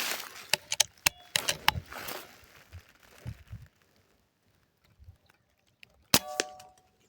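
Air rifle being handled and fired: a run of sharp metallic clicks in the first two seconds, then a single loud sharp shot about six seconds in with a brief metallic ring.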